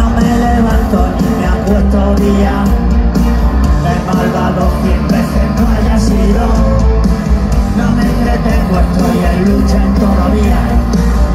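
A live rock band playing loudly, with drums, electric guitars, bass, keyboards and violin, heard from within the audience.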